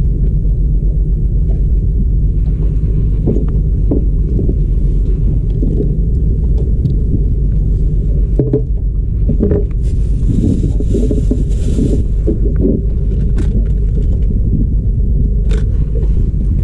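Steady low rumble, with scattered small clicks and knocks of fishing tackle being handled on a wooden boat deck, and a brief hiss about ten seconds in.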